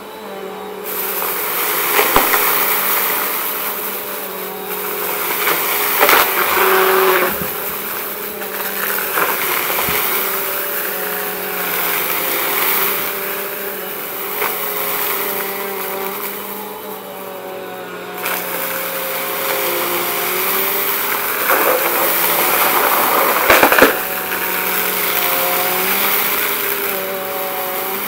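Bissell compact upright vacuum running, its motor whine wavering slightly as it is pushed over carpet, with repeated bursts of crackling and rattling as it sucks up a pile of dry, crunchy debris; the loudest crunch comes near the end.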